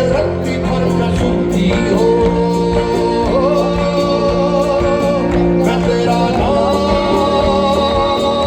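Live band music: a singer holding long, slightly wavering notes over sustained guitar and bass and a steady drum beat.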